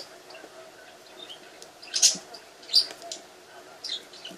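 Fireworks going off outside: a handful of sharp, separate cracks about a second apart, two loud ones in the middle.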